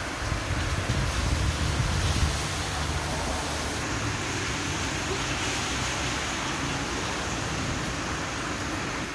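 Steady rain falling, heard as an even hiss, with a low rumble in the first two seconds or so.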